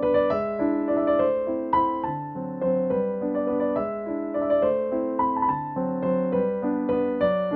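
Background piano music: a melody of ringing notes over lower chords.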